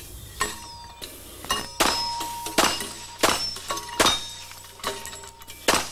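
Glock Model 21 .45 pistol firing a quick string of shots at pop-up plate targets, about one shot every three quarters of a second, each followed by a short metallic ring.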